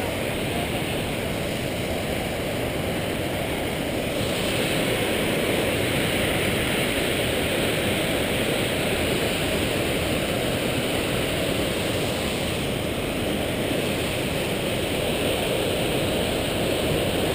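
Steady rush of a waterfall and fast creek water, an even roar that does not let up.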